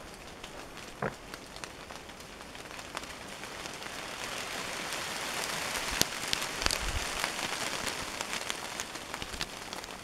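Footsteps crunching and rustling through dry leaf litter on a forest floor, with sharp crackles like snapping twigs. The rustling grows louder a few seconds in and eases near the end.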